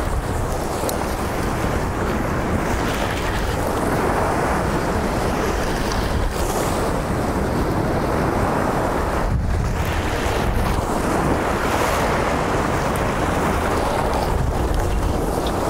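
Surf washing against the jetty rocks, a steady rushing noise, with wind buffeting the microphone in a constant low rumble.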